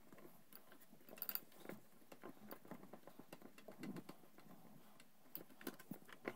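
Faint, scattered clicks and light knocks of hand work on a motorcycle's brake line and its fittings, with a small cluster of ticks about a second in and several more near the end.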